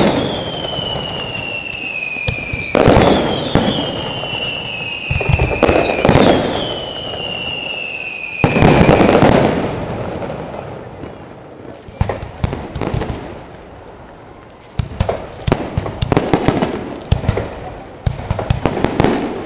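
Fireworks display: four loud bursts about three seconds apart, each followed by a long falling whistle. In the second half come dense rapid crackling pops.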